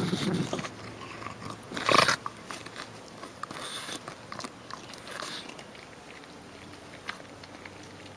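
A pug biting and chewing at raw pumpkin flesh: a run of separate bites and scrapes, the loudest about two seconds in.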